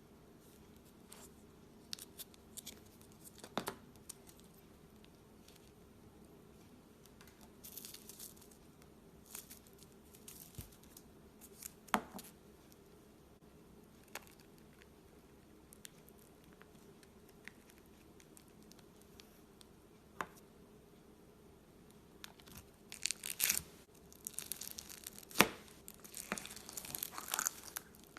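Slime being pressed and stretched by hand, giving off scattered soft clicks, pops and small crackles that come thicker and louder near the end.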